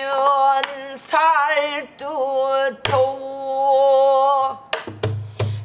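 Pansori singing by a woman: long drawn-out notes with wide vibrato, slowly bending in pitch. A buk barrel drum is struck once about three seconds in and a few more times near the end.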